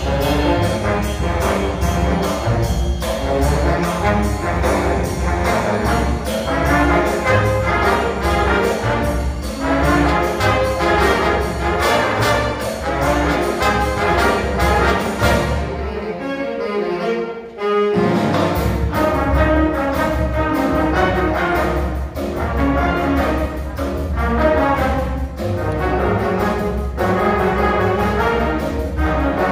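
A jazz big band playing: saxophones, trombones and trumpets over upright bass and a drum kit keeping steady cymbal time. About sixteen seconds in, the bass and drums drop out for a couple of seconds of horns alone, then the full band comes back in.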